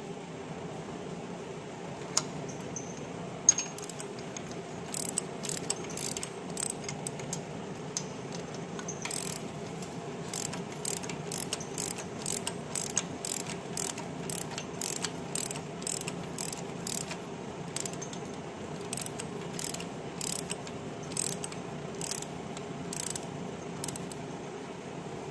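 Ratchet wrench clicking as it turns a rocker-arm adjusting nut on a Corvair flat-six's cylinder head, setting valve lash. The clicks come in repeated strokes, about two a second, over a steady background hum.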